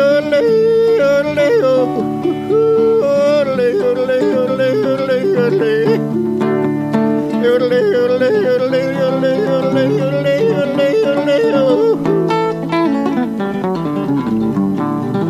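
Live folk song in a wordless break between verses: acoustic guitar strumming, with a wavering, sliding melody line over it.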